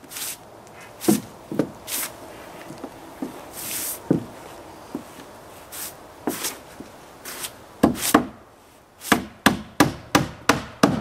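Hammer striking wood: scattered blows at first, then a quick run of about three strikes a second near the end, as when driving a nail home.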